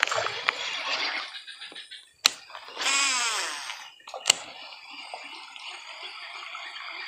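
Shimano SLX baitcasting reel during a cast and retrieve. Ticking of the reel being cranked, then a sharp click as the spool is freed, and about a second of spool whirring that fades and drops in pitch as the lure flies out. A second sharp click as the reel re-engages, then soft steady cranking as the lure is retrieved.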